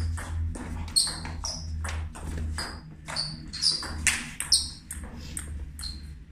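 Table tennis rally: the ball clicking off the bats and the table in quick alternation, about two hits a second, each with a short high ping, over a low hum.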